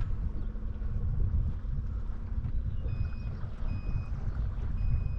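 Boat motor running with a steady low rumble and hum. From about three seconds in, a short high electronic beep sounds three times, roughly a second apart.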